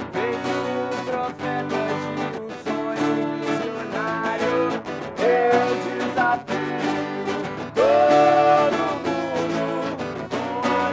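A band playing with strummed electric and acoustic-sounding guitars, full and steady, with strong held notes that bend in pitch standing out about five and eight seconds in.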